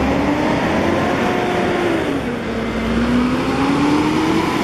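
Intercity coach's diesel engine pulling away, close by: the engine note drops about two seconds in, as at a gear change, then climbs again, over the hiss of tyres on a wet road.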